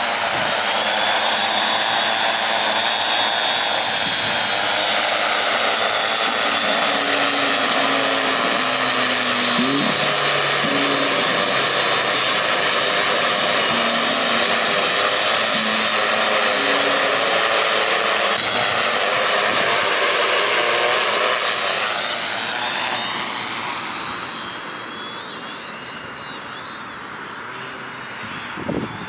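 Tarot T810 hexacopter's 320 kV motors and 15-inch carbon props whining in flight. Their pitch dips and then climbs about two-thirds of the way in, and the sound grows fainter as the craft moves off. A few low thumps near the end.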